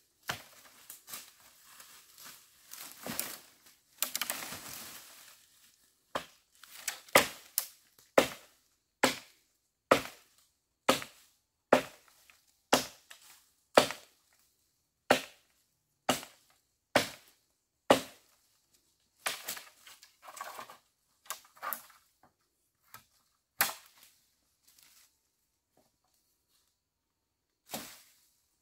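Rustling through dry leaves and undergrowth, then a run of sharp cracks about once a second as dry wood is chopped and broken up for firewood, thinning out toward the end.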